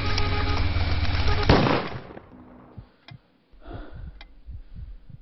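Film soundtrack: dense music over street noise ends in a loud sudden hit about a second and a half in, then cuts off abruptly to a quiet room with faint clicks and soft rustles.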